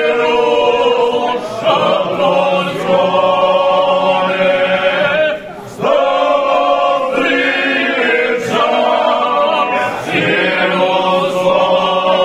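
A group of men singing unaccompanied in the Krajina folk style, long drawn-out notes held together in close harmony, with short breaks for breath, the longest about five and a half seconds in.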